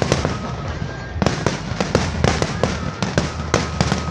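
Fireworks display: shells bursting in rapid, irregular succession, several bangs a second, thinning briefly about half a second in and then picking up again, over a steady low rumble. A thin steady whistle comes in near the end.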